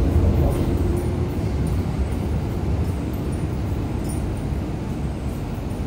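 MTR M-train electric multiple unit pulling out of the platform: a low rumble of wheels and traction motors that slowly fades as the train moves away.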